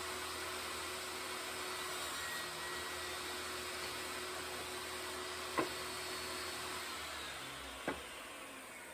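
Table saw running freely with its blade spinning, then switched off about seven seconds in and winding down. Two sharp knocks of cut wooden pieces being handled on the saw table come in the second half.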